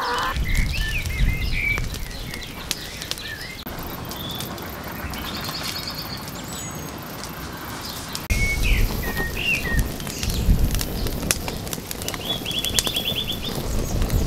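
Dry-stick wood fire crackling with frequent sharp pops, while birds chirp and trill in the background. A low rumble comes and goes, strongest at the start and again from a little past halfway.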